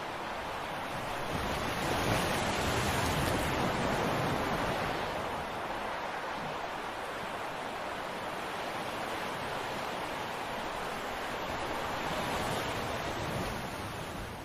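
Small sea waves washing onto a sandy beach: a steady hiss of surf that swells about two seconds in and again near the end.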